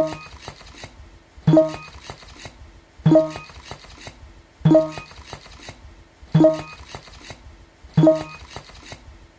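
Battery-powered moving plush cat toy jerking around on its motor. It makes a sharp clattering jolt about every one and a half seconds, six times, each one ringing briefly and dying away.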